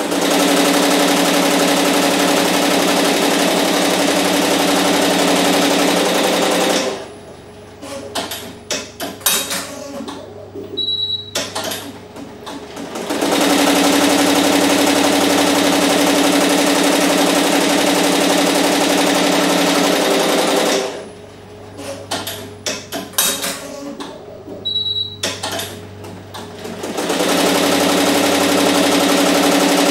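Barudan multi-needle embroidery machine stitching a logo onto a trucker cap, a steady fast clatter of needle strokes. It stops twice for a few seconds of quieter, irregular clicks and a short high beep, then starts stitching again.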